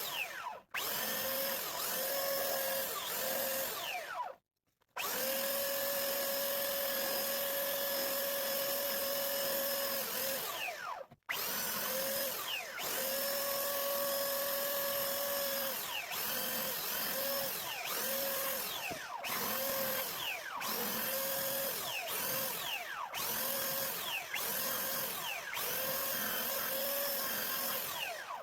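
A handheld electric power tool's motor whining at a steady pitch, switched on in repeated bursts from about half a second to several seconds long, with short pauses between them.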